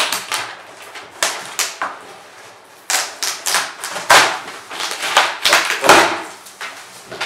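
Packing tape being slit and torn on a large cardboard box, with cardboard scraping and rustling as the box is opened: a run of short, sharp scraping and tearing strokes, loudest about four and six seconds in.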